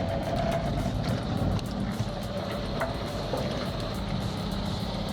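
A heavy engine running steadily, with many sharp clicks and rattles over it.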